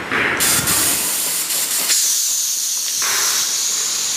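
A steady hiss. It is fuller and brighter in the first couple of seconds, then settles into a thinner high hiss.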